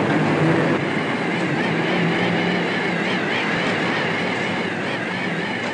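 Steady mechanical noise of steelworks plant at the open-hearth furnaces, with a faint wavering higher tone running over it.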